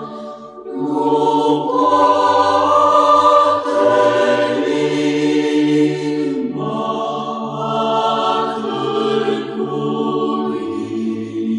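Church choir singing Orthodox chant a cappella: slow, sustained chords that shift every second or two over a low bass line.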